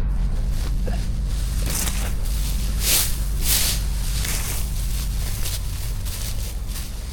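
Straw being handled, with several short rustling swishes over a steady low rumble.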